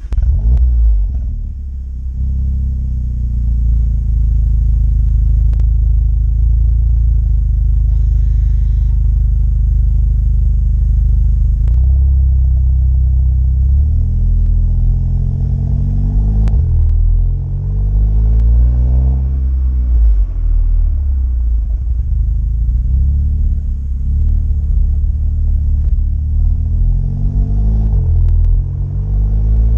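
VW Golf 7 GTI Clubsport's 2.0-litre turbocharged four-cylinder engine heard through a Friedrich Motorsport 76 mm cat-back exhaust with front silencer. It starts with a rev flare that settles to idle within about two seconds. Later it is revved briefly a few times.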